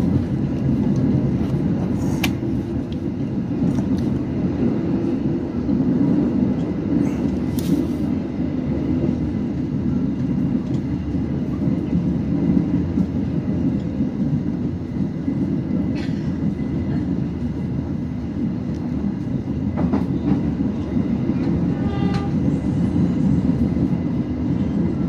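Passenger train running on the rails: a steady low rumble with a few sharp clicks from wheels over rail joints.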